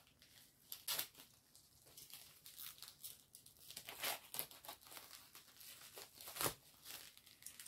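Diamond painting kit packaging being opened and unwrapped by hand: faint, scattered crinkling and rustling with a few sharper clicks.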